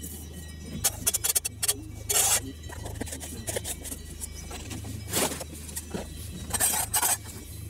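A metal spoon and a small plastic screw-lid tub being handled: a run of short scrapes and clicks about a second in, a longer scrape about two seconds in, and more scrapes near the end.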